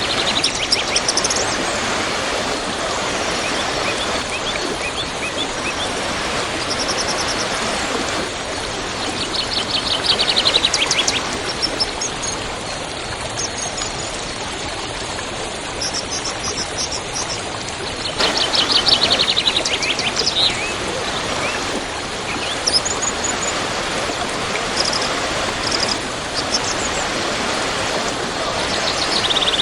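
Waterfall rushing steadily, with small birds chirping over it and three bouts of rapid trilling calls.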